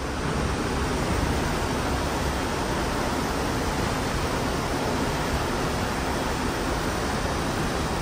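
Steady rushing noise from the stern of a moving cruise ship: the churning wake below, mixed with wind on the microphone.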